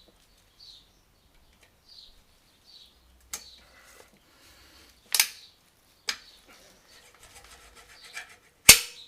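Four sharp metal-on-metal hammer blows a second or two apart, driving out a motorcycle steering-head bearing race, with a faint ring after one of them; the last blow is the loudest.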